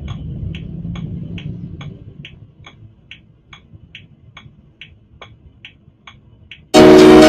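A car's indicator ticking steadily, about two and a half ticks a second, over a low rumble that fades after about two seconds. Loud music cuts in suddenly near the end.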